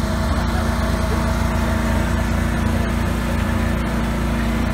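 An engine running steadily at an unchanging speed.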